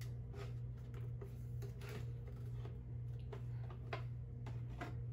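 Light, irregular plastic clicks and taps as the prop shovel's shaft is worked against and into the animatronic's hand, over a steady low hum.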